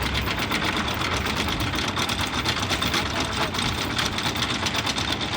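A sailing yacht's inboard diesel engine running steadily under way, with a fast, even ticking knock.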